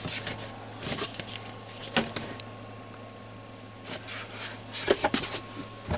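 Handling noise: a few light knocks and rustles about a second in, at two seconds, and again between four and five seconds, over a steady low hum.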